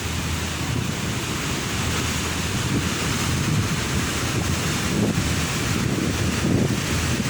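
Ocean surf breaking on a beach, a steady low rumble that slowly builds, with wind buffeting the microphone.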